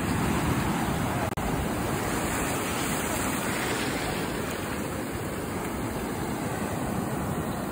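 Ocean surf washing up the beach: a steady rushing noise with a brief break about a second and a half in.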